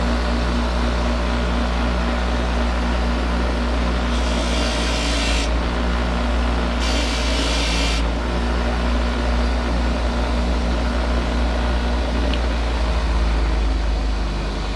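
A tool cutting off the protruding end of a classic car's trunk lock mechanism, heard as two spells of hissing cutting noise about four and seven seconds in, over a steady low hum.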